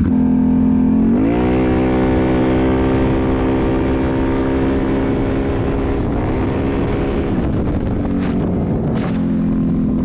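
Can-Am Renegade 1000 ATV's V-twin engine launching from a standstill at full throttle. The revs climb steeply about a second in and then hold nearly level while the quad gains speed, as the CVT clutch shifts up. Near eight seconds the revs drop back to a lower, steady pitch. The launch is on a new primary clutch spring that the rider finds too aggressive, spinning the tires.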